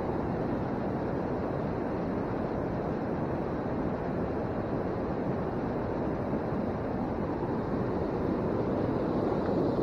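A steady rushing noise with no pitched sound or knocks in it.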